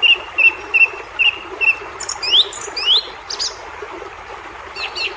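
Birds calling: a short chirp repeated about two and a half times a second, then two rising whistled notes about two and three seconds in, and a few more chirps near the end.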